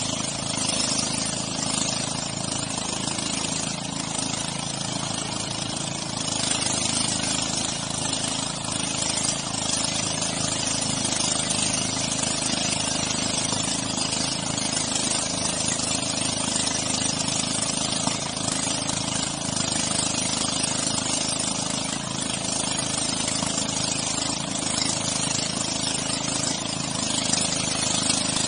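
Outboard motor of a wooden motorized canoe running steadily at cruising speed, with water rushing along the hull.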